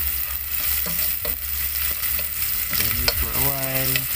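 Chopped garlic and onion sizzling in hot vegetable oil in a frying pan, stirred with a utensil that knocks against the pan a few times.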